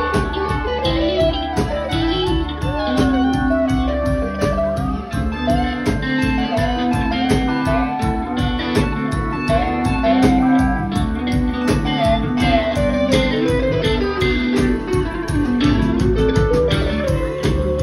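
Live rock band playing an instrumental jam: electric guitars, one playing a lead line full of string bends, over bass and drums keeping a steady beat.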